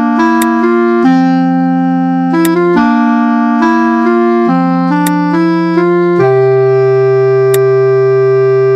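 Background music: a keyboard tune of held chords that change every second or so, with a few sharp clicks over it.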